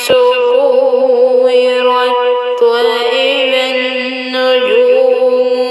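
Quran recitation in the melodic tajweed style: one voice holding long, ornamented notes that waver up and down, with a brief click right at the start.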